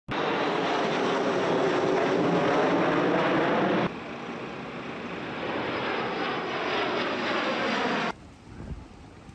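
Fixed-wing firefighting aircraft flying low overhead, its engine noise loud with the pitch slowly sliding as it passes. About four seconds in the sound cuts to a second, quieter stretch of aircraft noise. Near the end it drops to a faint background.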